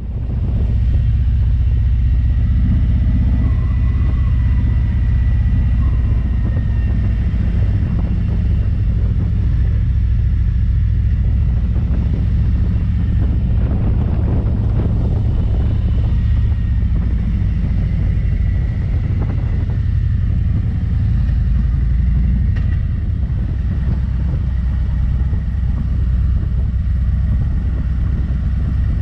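Harley-Davidson Road King Special's V-twin engine running steadily while riding along, a continuous low rumble with a haze of road and wind noise above it.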